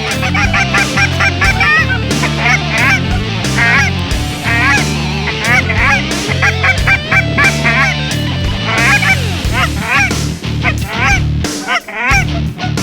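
A flock of Canada geese honking, many short calls overlapping and repeating throughout.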